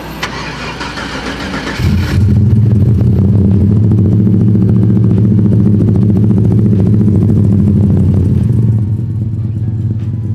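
Starter cranking for about two seconds, then the built 427 cubic-inch Dart-block V8 of a 98 mm-turbo Chevy Silverado fires and idles loud and steady through a 4-inch exhaust, easing off slightly near the end.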